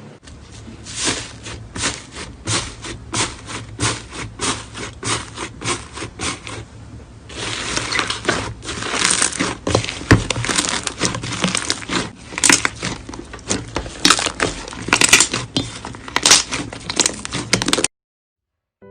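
Crunchy slime being squeezed, crackling and popping in strokes about two a second, then a denser run of crackling for the last ten seconds or so before cutting off suddenly.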